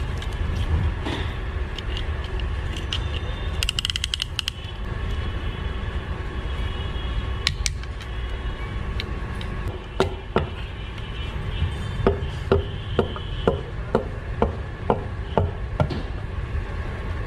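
A short rapid rattle about four seconds in, then from about ten seconds in a run of about a dozen sharp taps, roughly two a second, over a steady low workshop hum. The taps are a hammer tapping a piston down into the cylinder bore of a Volkswagen Vento petrol engine during an overhaul.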